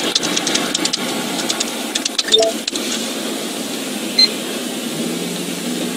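Steady hum inside an idling patrol car, with a run of rapid, irregular clicks over the first three seconds and one short electronic beep about four seconds in.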